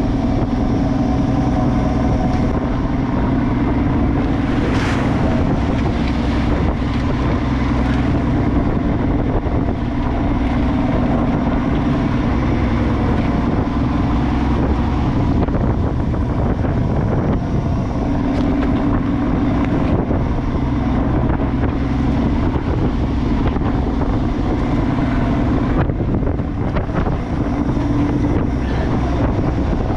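Fishing boat's engine running steadily, with wind buffeting the microphone.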